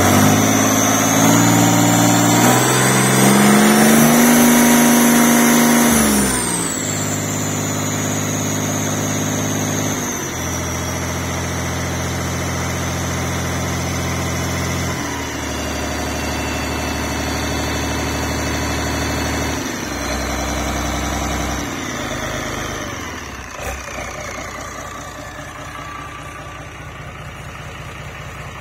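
FPT Iveco N60-400 six-cylinder marine diesel engine running, revved up over the first few seconds and then brought back down in steps through several steady speeds, falling toward a low idle in the last few seconds. A high whine climbs with the revs and then slowly falls away.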